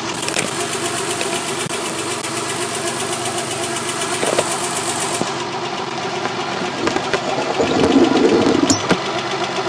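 3.0-litre V6 engine idling, heard through a mechanic's stethoscope held to the engine: a steady, rhythmic mechanical running sound, louder for a moment about eight seconds in.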